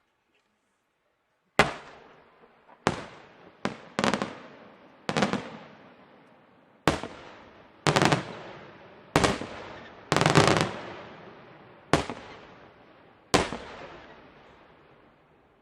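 Fireworks shells bursting in the air: about ten sharp bangs, roughly one every second or so, each trailing off in a long fading rumble.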